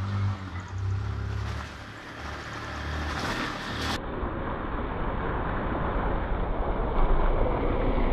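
Honda CG Titan 160 motorcycle with a single-cylinder four-stroke engine, approaching on a muddy dirt road and riding through puddles. A low, steady engine hum at first gives way to a fuller mix of engine, tyre and water noise that grows louder as the bike passes close, near the end.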